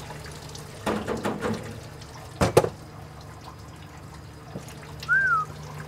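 Automatic transmission fluid dripping from a transmission pan, with tool and metal clatter about a second in and one sharp knock about two and a half seconds in. A short chirp sounds near the end over a steady low hum.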